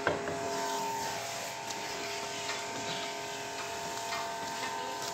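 A steady machine hum made of several held tones, with a sharp knock right at the start and a few faint clicks after it.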